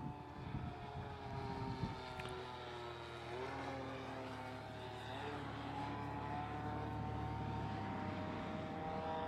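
Nitro glow engine of a Hangar 9 Twist 40 RC airplane in flight, a steady buzzing note that drops in pitch a few seconds in and then slowly rises again as the plane manoeuvres.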